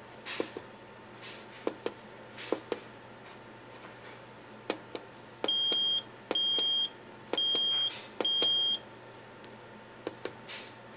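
Piezo buzzer on an Arduino IR receiver board beeping four times, each a steady high-pitched tone about half a second long, sounding in response to commands sent by infrared from a second Arduino. Small tactile pushbuttons on the transmitter board click sharply as they are pressed, with a click just before each beep.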